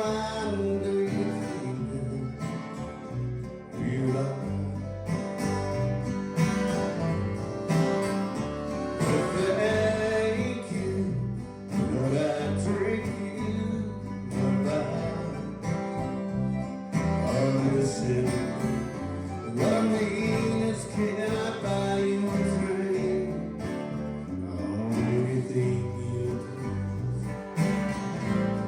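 Country music with plucked guitar.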